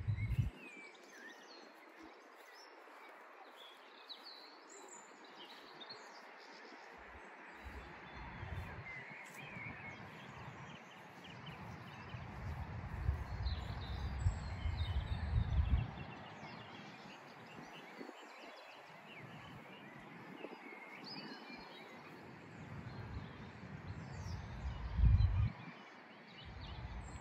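Birds chirping and singing in scattered short calls over a steady outdoor hiss, with irregular low rumbles coming and going; the loudest rumble is about three-quarters of the way through.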